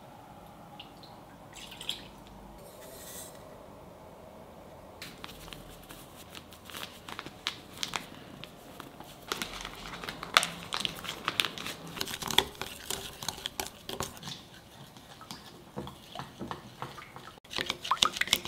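Flour poured from a crinkling plastic bag into a glass bowl, then chopsticks stirring a thick, wet rice-flour batter, clicking and squelching against the glass. The first few seconds hold only a few light taps; the dense clicking starts about a third of the way in.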